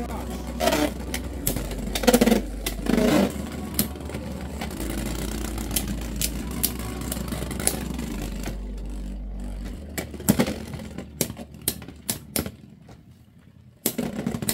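Two Beyblade X spinning tops whirring in a plastic stadium, with many sharp clicks and clacks as they strike each other and the stadium wall. The whirring and clashing thin out after about ten seconds.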